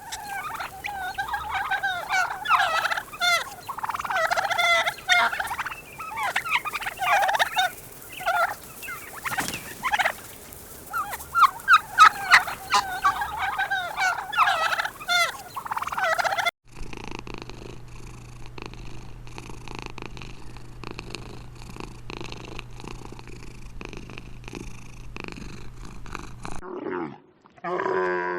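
A bird's rapid, warbling calls, repeated many times for about sixteen seconds. They cut off suddenly to a quieter low steady hum with faint clicks.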